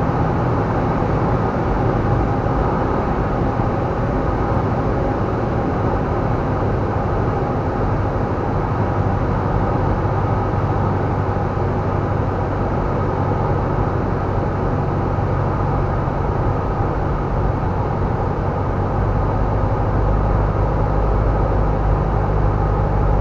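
Steady drone of a light airplane's engine and propeller in flight, a low even hum under a wash of airflow noise.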